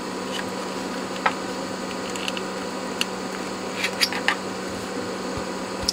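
Steady hum of bench room tone, with a few faint clicks and taps from a metal-framed circuit board being turned over in the hands.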